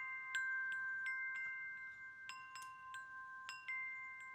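Chimes ringing, struck at irregular moments, with several clear tones sustaining and overlapping after each strike.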